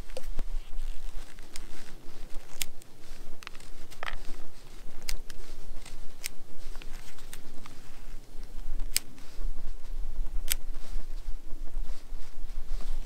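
Fixed-blade bushcraft knife carving shavings from a hard pine branch: irregular sharp cuts and snaps of the blade biting into the wood, about a dozen in all, over a low rumble.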